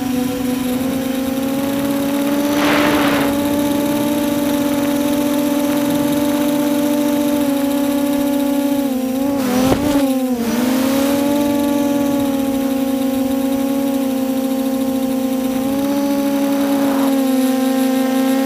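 Four brushless quadcopter motors (SunnySky 2212 980kv) spinning 9x5 props, heard from the onboard camera as a steady pitched whine. About ten seconds in, the pitch dips and wobbles for a second as the throttle is chopped and punched through a flip, then steadies again. Brief rushes of air noise come about three seconds in and again just after the flip.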